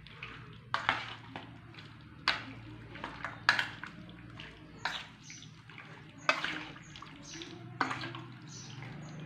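Raw chicken pieces being mixed with oil and spice paste in a steel bowl: wet squelches and slaps, roughly one every second and a half.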